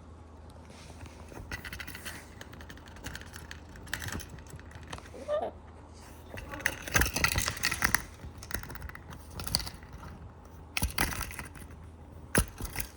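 Metallic jangling and clinking in irregular bursts, like small metal pieces knocking together, with a short rising squeak about five seconds in.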